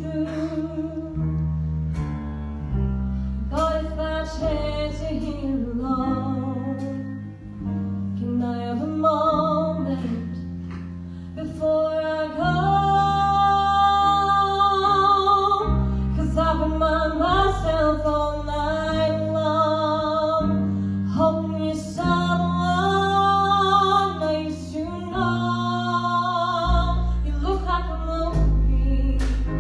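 Live performance of a slow song: a vocalist sings a sustained melody with vibrato over guitar and band accompaniment.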